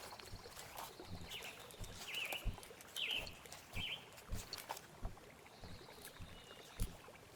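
A hiker's footsteps on a rough trail, irregular soft thumps, with a bird calling four short chirps in a row during the first half.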